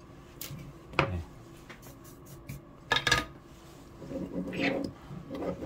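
Tools and a heatsinked circuit board being handled on a wooden desk: a sharp metallic clink about a second in and a louder double clink around three seconds in, then rubbing and shuffling as the board is picked up and turned.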